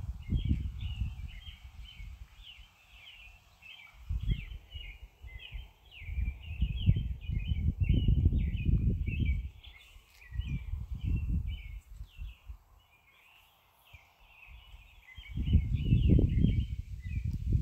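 Birds chirping steadily in the background, a dense run of short high chirps. Over them come four stretches of low rumbling, which are the loudest sound.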